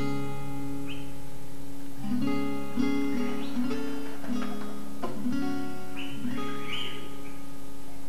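Background music: an acoustic guitar playing a melody of plucked notes that ring on, changing about every half second.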